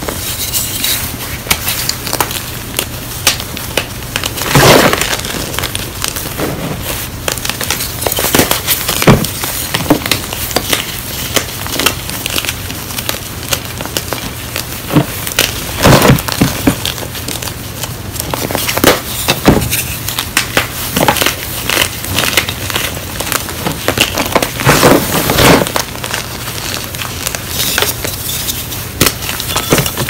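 Blocks of gym chalk (magnesium carbonate) being crushed and crumbled by hand over a bed of broken chalk pieces: dry, gritty crunching and crackling, with several louder crunches as pieces give way.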